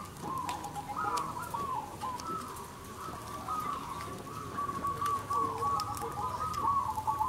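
Caged zebra doves (perkutut) cooing in chorus, their repeated rolling coo phrases overlapping one another without a break.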